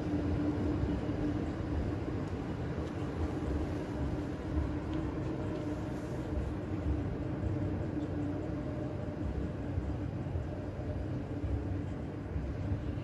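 Škoda ForCity Smart Artic electric tram travelling past: a low, steady rumble with a constant hum, easing slightly toward the end.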